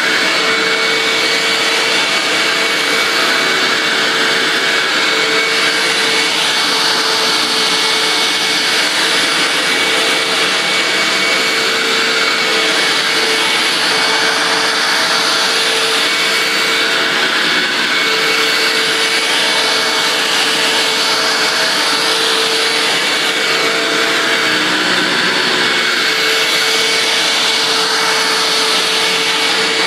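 Hoover WindTunnel self-propelled upright vacuum cleaner running steadily while it vacuums up shredded paper: a constant rush of air with a steady motor whine.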